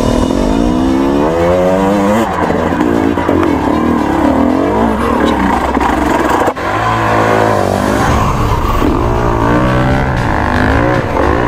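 KTM two-stroke TPI enduro dirt bike engine revving up and down repeatedly as it is ridden over a rough trail. About six and a half seconds in it breaks off briefly, then a dirt bike engine again revs and falls with the throttle.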